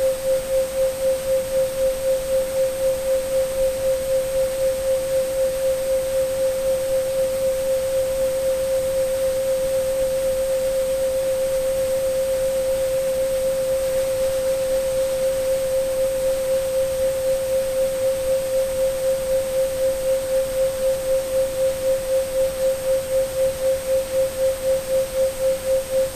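A steady synthesized 528 Hz sine tone that pulses in loudness, its beating deeper near the start and end and shallower in the middle, over a faint even hiss of white and pink noise and a faint thin high tone.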